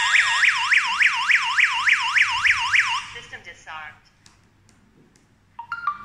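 Daytech TA03 home alarm system's siren sounding a fast rising-and-falling yelp, about three and a half sweeps a second: the armed system has been set off. It cuts off about halfway through, followed by a short warbling chirp and a few faint clicks, and brief beeps near the end.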